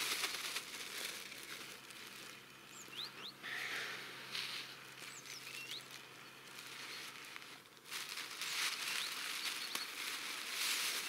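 Loose snow scooped by hand into a plastic bag, the bag crinkling and the snow hissing in several bursts. A few short bird chirps in the background.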